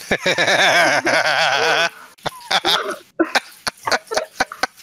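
Person laughing: a long laugh whose pitch wavers quickly up and down for about two seconds, then a run of short, sharp laugh bursts.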